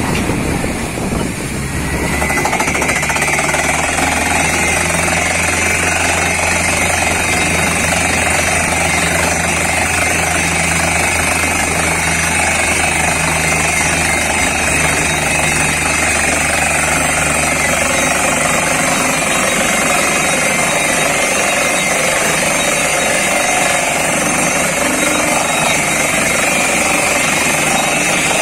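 Truck-mounted borewell rig drilling with a compressed-air down-the-hole hammer: a loud, steady hammering clatter over the rush of air blowing water and cuttings up out of the bore. A low engine drone runs beneath it and drops away about two-thirds of the way through.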